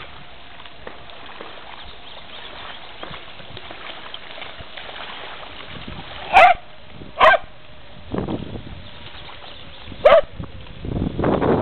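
A dog barking three times: two sharp barks close together about six seconds in, and a third about three seconds later, over a steady faint background hiss.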